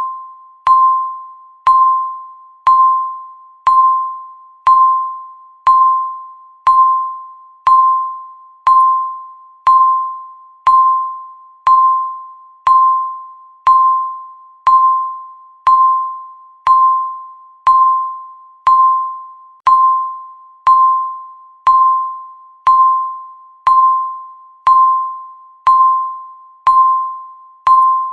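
A countdown timer's tick sound repeating once a second: each tick is a sharp click with a ringing, bell-like tone that fades away before the next.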